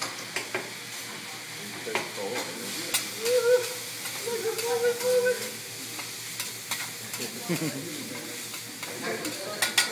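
Fried rice sizzling on a hot steel hibachi griddle while metal spatulas scrape and clack against the griddle as it is chopped and stirred. A steady hiss runs under sharp clacks, with a quick cluster of them near the end.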